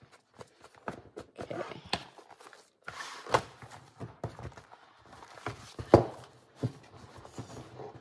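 A hand-bound junk journal being handled on a tabletop: paper pages and board cover rustling and knocking, with two louder thumps about three and six seconds in.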